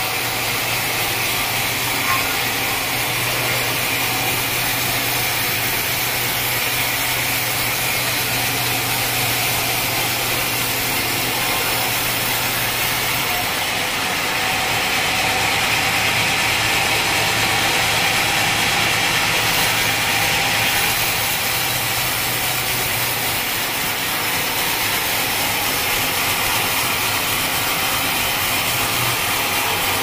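Band sawmill blade cutting lengthwise through an acacia log, with the mill's motor running steadily under the hiss of the cut. About halfway through, the cutting hiss turns brighter and louder for several seconds.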